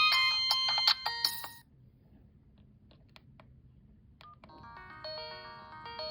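Sony Ericsson J230i mobile phone playing its built-in ringtones through its small loudspeaker. One bright multi-note tune stops about a second and a half in. A few faint clicks follow, then a different, softer melody starts and grows louder.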